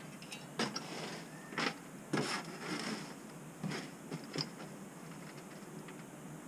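A few irregular knocks and clatters, about five over four seconds, with a short scraping sound after the third.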